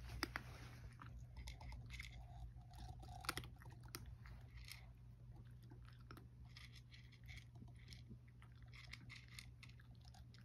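A domestic cat chewing dry kibble: faint, irregular crunches and clicks as it eats from a tray.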